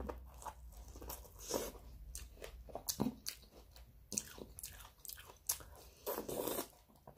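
Close-up eating sounds: a person biting and chewing food, with crisp crunches coming at irregular moments.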